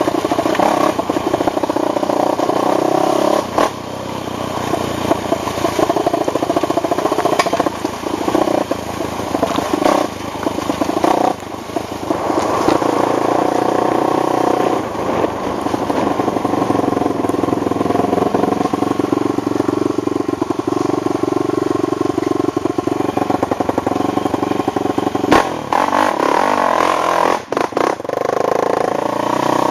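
ATV engine running as it is ridden, revving up and down with the throttle, with occasional knocks and rattles; a sharp knock comes about 25 seconds in.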